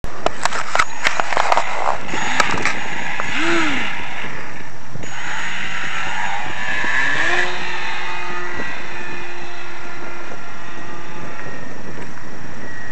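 Electric motor and propeller of a GWS Corsair foam RC plane: revved briefly, then run up to a steady whine for the launch that holds for a few seconds and thins to a higher, fainter whine as the plane climbs away. A loud steady rushing runs underneath, with a few sharp knocks in the first couple of seconds.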